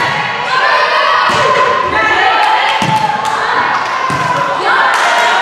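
An indoor volleyball being struck, with several sharp thumps as players bump, set and hit it during a rally. Voices call out over the play.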